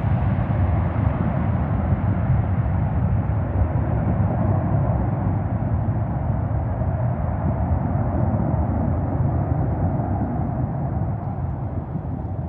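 Jet airliner's engines running loud on the runway as the plane rolls away, a steady low rumble that starts to fade near the end.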